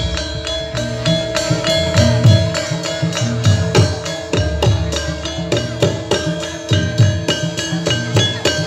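Javanese gamelan music accompanying a jaran kepang dance: drums and tuned metal percussion in a quick, even beat over a sustained ringing tone.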